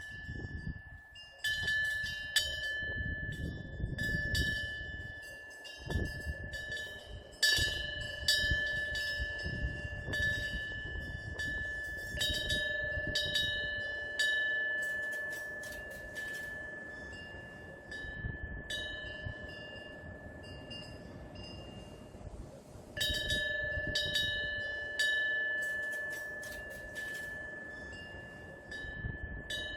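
Korean temple eave wind bell (pungyeong) ringing in the wind: irregular clapper strikes, some in quick clusters, each leaving a long clear ring on a steady high tone. The ringing dies down briefly about two-thirds through before new strikes start it again, with a low rumble underneath.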